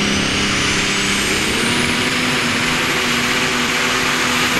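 Modified pulling tractor's engine running flat out as it drags the weight sled, with a high whine climbing steadily in pitch. Right at the end a sharp bang: the engine blowing apart.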